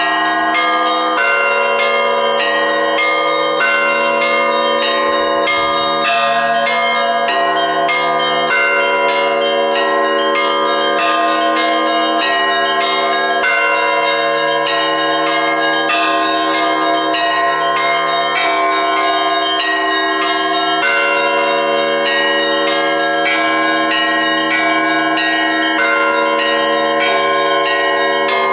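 Russian Orthodox church bells ringing a full peal (zvon): many bells struck in quick, overlapping strokes over the long-held tones of the larger bells, without a pause.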